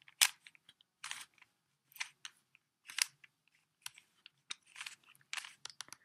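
Stickerless plastic 3x3 Rubik's cube being turned by hand through a move sequence, its layers snapping round with sharp, unevenly spaced plastic clicks, one or two a second.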